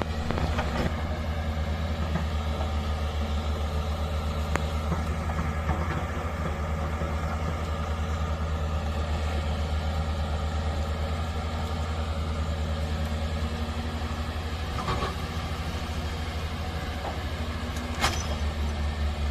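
Excavator engine running steadily with a low, even hum, and a few sharp clicks or knocks heard now and then.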